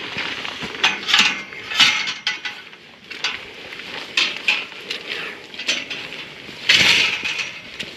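Metal farm gate clinking and rattling as it is handled and passed through, in a string of short sharp clinks. A louder rushing rustle comes near the end.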